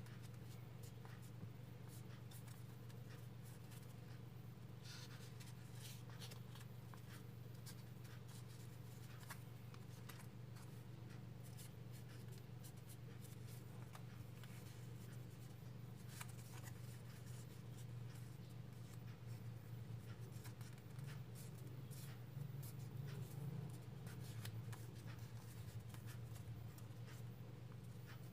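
Faint rustling and crinkling of origami paper being creased and folded by hand, in short scattered clicks, over a steady low hum.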